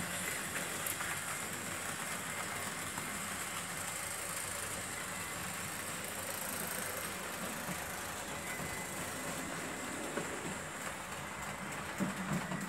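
Märklin H0 model train, an SBB Crocodile locomotive pulling tank wagons, running steadily over the track: an even whir and rolling rattle of the electric motor and wheels on the rails.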